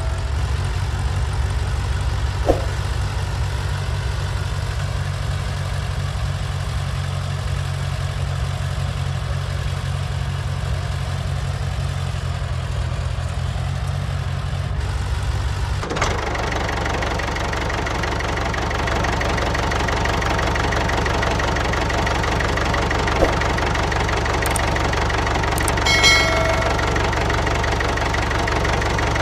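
Tractor engine running steadily with a low chugging. About halfway through it switches suddenly to a busier engine note with a steady high whine.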